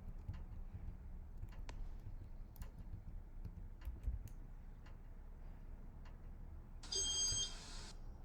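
Casablanca Spirit of Saturn ceiling fan running on speed 3: a faint low hum with light scattered ticks. Near the end a brief high tone sounds for about a second.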